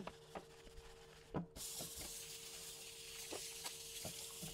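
A few light knocks and scraping as a wooden cutting board is scrubbed with a dish-washing wand, then about a second and a half in a kitchen tap starts and water runs steadily onto the board in the sink.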